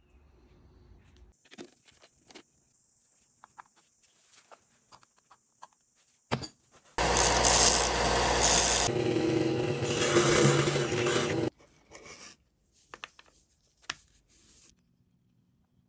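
Belt sander running with a bar pressed against the moving sanding belt, a loud grinding hiss that lasts about four and a half seconds, around the middle. Light scattered knocks and handling clicks before and after.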